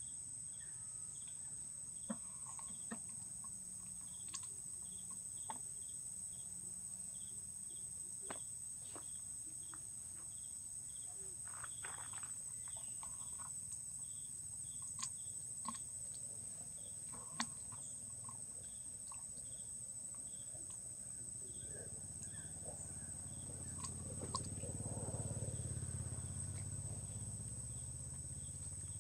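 Insects droning steadily, with a short chirp repeating about every two-thirds of a second. Scattered light clicks are heard throughout, and a low rumble swells about three-quarters of the way through.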